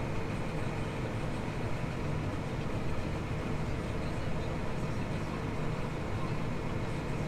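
Tractor engine running steadily at a low, even drone, heard from inside the cab.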